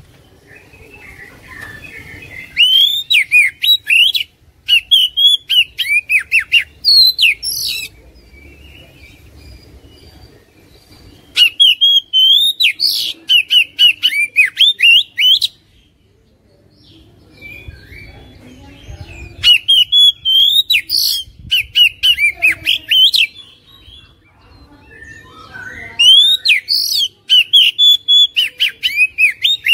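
Male Oriental magpie-robin (kacer) singing: loud phrases of rapid whistled and scratchy notes, each lasting a few seconds, come in four bursts with quieter chattering in the pauses between them.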